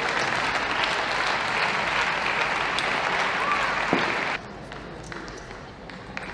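Spectators applauding after a point in a table tennis match. The applause cuts off abruptly about four seconds in and gives way to quieter hall sound with a few faint ticks.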